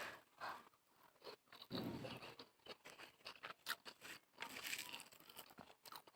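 A person chewing food close to the microphone: a string of short, irregular crunches and mouth clicks.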